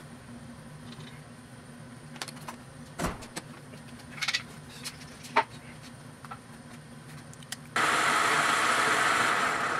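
Clicks and knocks of metal tooling being handled on a lathe: a die holder set into the tailstock and the tailstock slid up to the work. About eight seconds in, the lathe's spindle starts with a sudden loud, steady whir.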